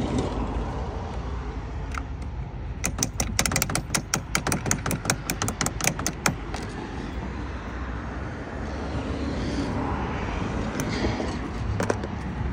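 Hand ratchet wrench clicking quickly, about six clicks a second, for three seconds or so starting a few seconds in, over a steady low rumble.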